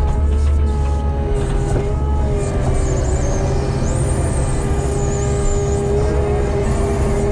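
Heavy equipment's diesel engine running steadily, with a wavering high-pitched whine for a few seconds in the middle.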